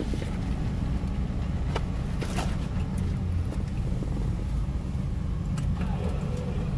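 Toyota car's engine idling, a steady low hum heard from inside the cabin, with a few light clicks and rustles.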